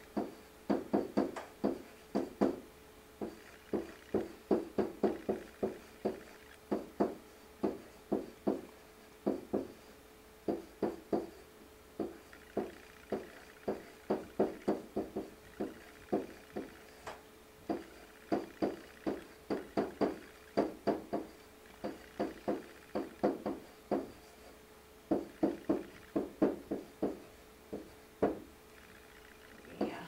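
Felt-tip marker squeaking on chart paper in quick, irregular strokes while handwriting, in clusters with short pauses between words.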